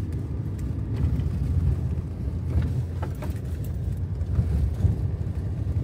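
2020 Ford Ranger truck driving off-road: a steady low rumble of engine and tyres, with faint scattered clicks and rattles.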